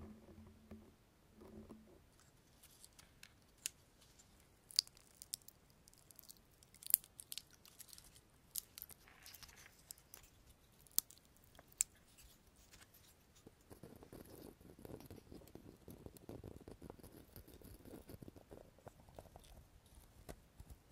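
Dry pinecones handled close to the microphone, their scales clicking and crackling. Scattered sharp ticks at first, then a steadier crunching rustle in the second half as the cones are rubbed or squeezed.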